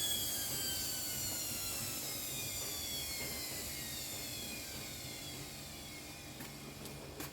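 Whirlpool washer's belt-driven brushed wash motor and drum whining as they speed up briefly, then coasting down with a slowly falling whine. The machine is stopping on error F06, which the technician puts down to a faulty main control board rather than the motor or its carbon brushes.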